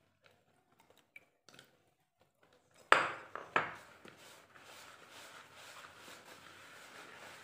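A few faint ticks, then two sharp knocks about three seconds in, followed by a steady rustling as a hand rubs and mixes rice flour in a plastic basin.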